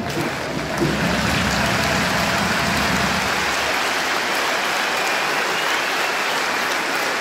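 Large stadium crowd applauding, a dense and even clapping. The low rumble of voices under it thins out about halfway through.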